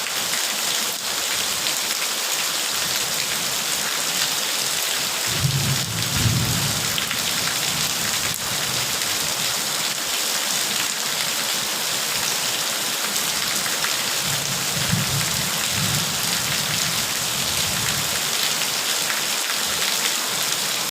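Steady heavy rain hissing as it falls. Low thunder rumbles in twice, once about five seconds in and again around fifteen seconds in.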